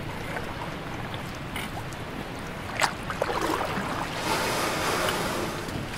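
Water splashing against an inflatable river raft as a swimmer is hauled back aboard over the side, with a steady rush of river water underneath. There is a sharp knock just before the middle, and the splashing is loudest in the second half.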